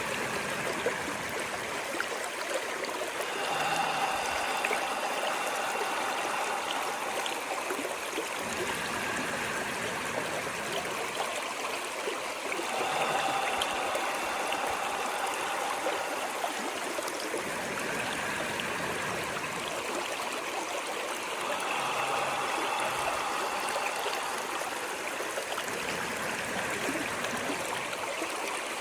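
A stream of running water, rushing and trickling steadily, with faint gurgling notes that swell and fade every few seconds.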